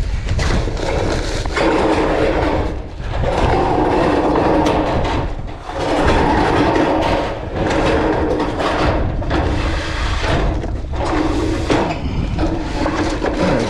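Metal ridge cap being slid along the roof, scraping over the roof panels in repeated pushes of a second or two each, over a steady low rumble.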